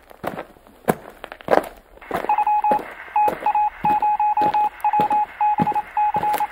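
Electronic outro sound effect: sharp percussive hits, then from about two seconds in a single-pitched electronic beep sounding in an irregular run of short and long pulses.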